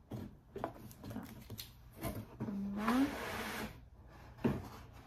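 Cardboard packaging being handled: a few scattered knocks and rustles, then a scraping rush about three seconds in as a molded pulp packing insert is pulled up out of the box.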